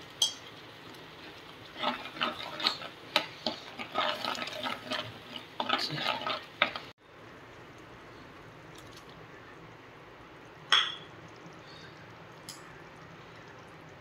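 Metal slotted spoon stirring chilli paste into a masala in a clay pot: a rapid run of scrapes and clinks for about five seconds, ending abruptly. Then a steady low sizzle of simmering gravy, broken by one sharp ringing clink and a fainter one later.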